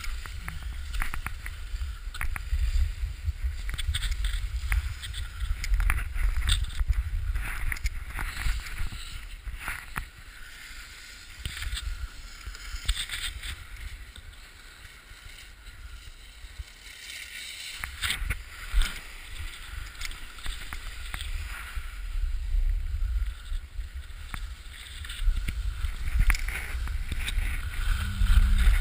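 Wind rumbling over a GoPro's microphone with the scrape and chatter of edges carving over packed snow during a downhill run. It eases off for a stretch in the middle and picks up again near the end.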